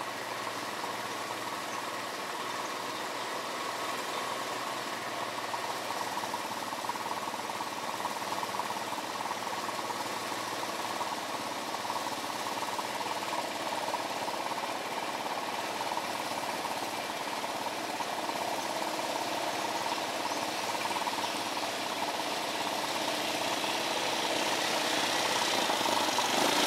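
ATV (quad bike) engine running steadily, getting louder over the last few seconds as the quad approaches.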